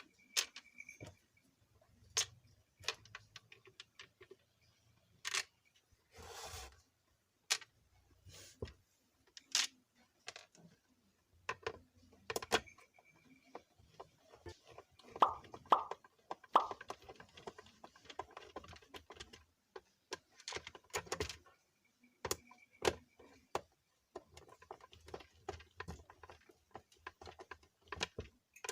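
Irregular clicks and knocks of a plastic mixer grinder body being handled while its bottom-cover screws are driven in with a screwdriver, with a quick run of three louder knocks about halfway through.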